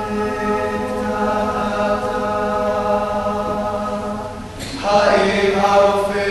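Choir singing long held chords. About four and a half seconds in the voices drop away briefly and come back in louder on a new chord.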